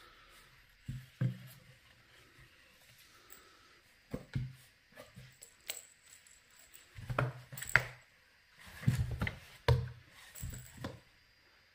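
A cat shifting in a cardboard box and swatting at a dangling toy: scattered knocks and dull thuds on the cardboard, a few early on and then a quick run of them in the second half as it bats at the toy.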